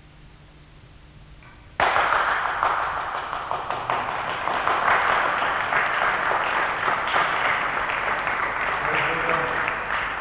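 A group of people clapping in applause. It starts abruptly about two seconds in and keeps on in a dense, even patter of claps.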